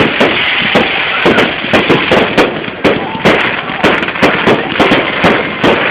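Aerial fireworks going off in quick succession, about three or four bangs a second, over a continuous crackling, hissing background.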